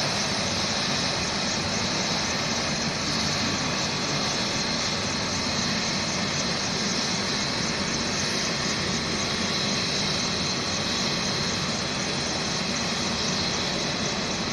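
Helicopter's engine running steadily on the ground before lift-off: a steady high whine over an even rushing noise, with no change in pitch or level.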